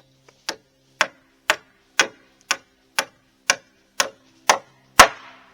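Hammer blows on a bolt in the wooden frame of a rabbit hutch: sharp knocks, evenly spaced at about two a second, each ringing briefly. The last blow, near the end, is the loudest.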